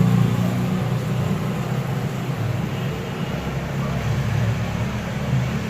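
Steady low mechanical hum from a motor or blower running on the repair bench, without break or change.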